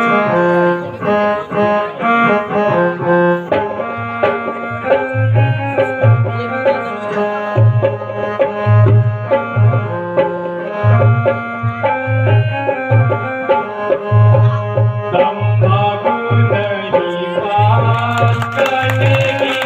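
Instrumental music starting abruptly: a sustained reedy melody over a steady hand-drum rhythm with deep repeated bass strokes. A high metallic shimmer joins near the end.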